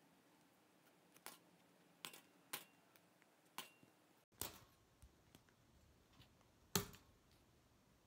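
Scissors snipping through the excess tails of plastic zip ties: about six sharp snips at uneven intervals, the loudest near the end.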